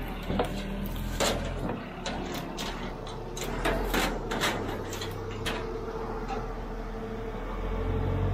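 Caterpillar TH406 telehandler's diesel engine running while a steel plate swings on a chain from its boom, with irregular metal clanks and rattles through the first half. A steady whine comes in about five seconds in, and the engine gets louder near the end.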